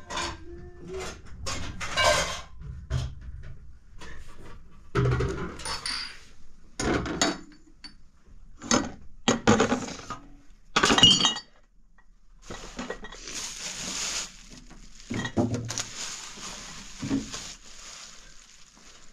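Dishes and pots knocking and clinking as they are handled: a string of separate knocks and clinks, the loudest one ringing about eleven seconds in. A steady hiss joins in from about twelve seconds.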